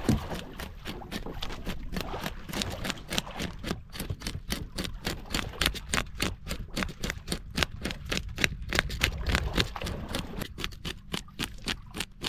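Knife working on a freshly caught fish to clean it for cooking: rapid, irregular scraping and clicking strokes, several a second, over a steady low rumble.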